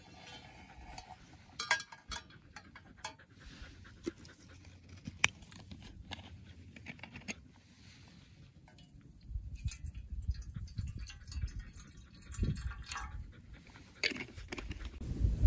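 Scattered light clicks and knocks of camp cooking gear being handled: a cartridge gas stove and an aluminium mess tin. A low rumble of wind on the microphone comes in about nine seconds in.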